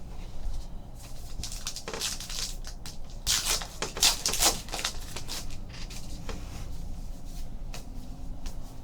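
Foil trading-card pack wrappers being torn open and crinkled by hand, a quick run of crackly rips that is loudest around the middle.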